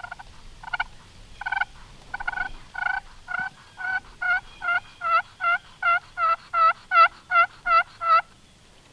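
Turkey call worked by hand to imitate a hen turkey: a run of about eighteen yelps that grow louder and come faster and faster, stopping shortly before the end.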